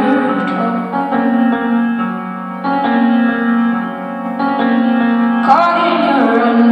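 Live solo keyboard playing held chords, one changing to the next every second or two. Near the end a woman's singing voice comes in over it with a phrase that falls in pitch.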